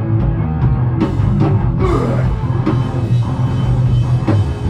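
A rock band playing live: distorted electric guitars, bass and drum kit, loud and continuous.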